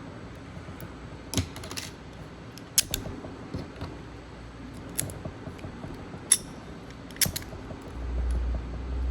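Scattered sharp metallic clicks and taps, about seven over several seconds, from a Master Lock M5 padlock and its picking tools being handled once its pins have been picked. A low rumble comes in near the end.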